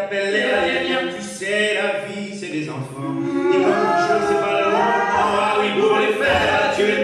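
Vocal music: several voices singing sustained, gliding harmonies without instruments, over a steady low held note.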